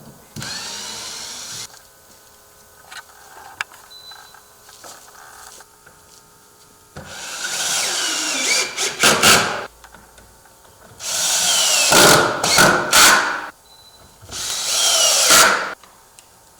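Power drill driving hinge screws through a door's hinges into the frame: a brief spin about half a second in, then three long runs whose motor whine drops in pitch as each screw tightens, the first two ending in quick on-off pulses.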